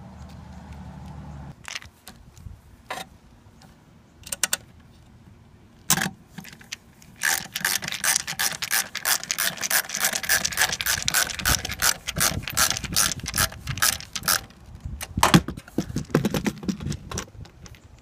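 Ratcheting screwdriver clicking as a screw is driven in an RV air conditioner's capacitor box: a few single clicks, then a long run of rapid ratchet clicks from about seven seconds in, lasting some eight seconds.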